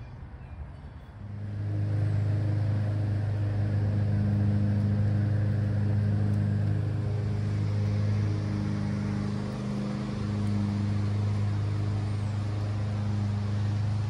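A motor running steadily with a low, even hum that starts about a second in and keeps a constant pitch.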